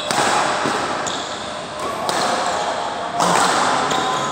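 Badminton rally: rackets striking the shuttlecock, a series of sharp hits about a second apart, over a steady background of voices.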